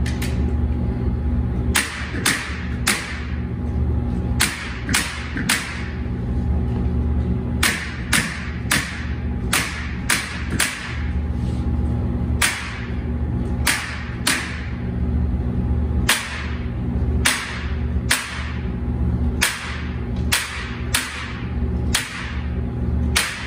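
Power staple gun driving staples through crushed velvet into the edge of an upholstered sound panel frame: about thirty sharp shots in quick runs of roughly two a second, with short pauses between runs. A steady low hum runs underneath.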